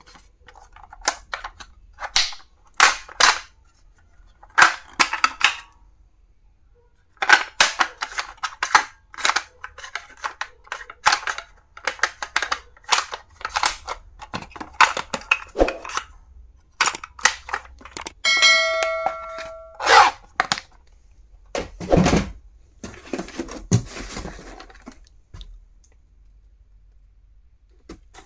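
Plastic stationery being handled and opened: irregular clusters of sharp clicks, snaps and taps. About two-thirds of the way through comes a brief ringing tone, followed by a heavier knock.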